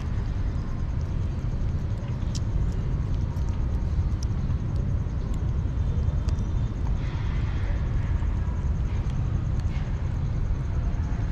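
A steady low rumble, with faint scattered clicks from kittens chewing and crunching kibble and wet food.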